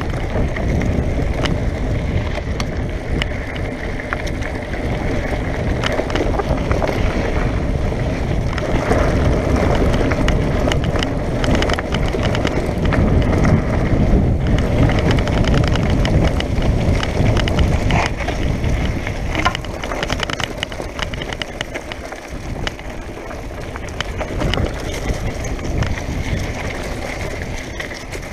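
Mountain bike descending a loose dirt and gravel trail: knobby tyres rolling and crunching over stones, with a constant rattle of small clicks from the bike, over a low rumble of wind on the microphone.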